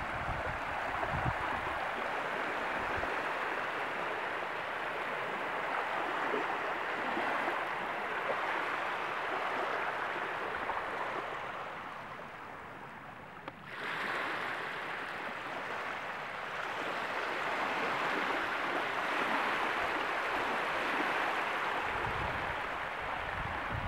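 Gentle water washing and lapping at the shoreline of a calm, shallow lagoon, a steady hiss that dips briefly about halfway, with wind buffeting the microphone near the start and near the end.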